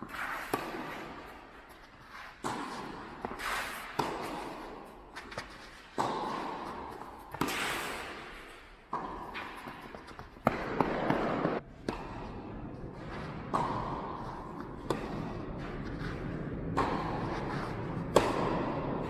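Tennis rally on a clay court: balls struck by rackets and bouncing, with shoes scuffing across the clay between shots, echoing in a large hall.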